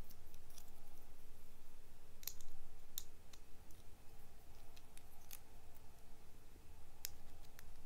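Small plastic Kinder egg toy parts being handled and snapped together, with a few sharp plastic clicks scattered through and soft rubbing of fingers on plastic between them.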